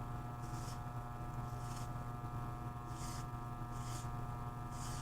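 Pipe-cleaning brush tool scouring the end of a copper pipe back to bright metal: short scratchy strokes, about one a second, over a steady hum.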